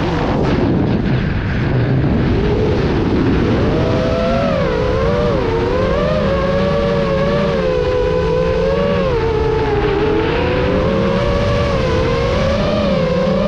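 FPV quadcopter's motors and propellers whining. The pitch drops sharply at the start, then keeps rising and falling with the throttle.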